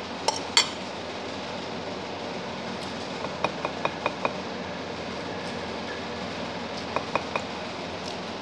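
Metal spoon clinking against a dinner plate: two sharp clinks at the start, a quick run of about five clinks around the middle, and three more near the end, over a steady background hum.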